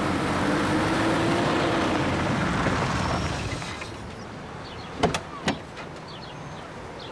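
Steady car and engine noise that fades out after about three and a half seconds. A little after five seconds in come two sharp clicks about half a second apart: a car door's handle and latch being opened.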